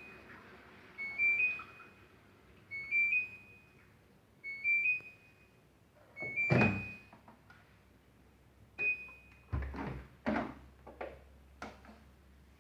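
Daewoo DWD-FT1013 washing machine beeping its end-of-cycle signal: a short rising three-note chime four times, about every 1.7 s. A single beep follows, and then a few dull clunks.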